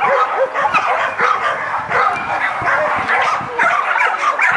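Dog barking and yipping rapidly, several short high barks a second with no pause between them.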